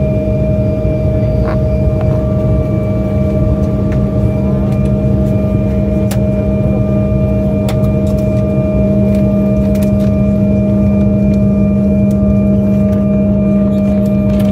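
Embraer 175 twin jet's GE CF34 engines idling, heard inside the cabin as a steady drone with a constant low hum and a higher steady whine, plus a few faint clicks.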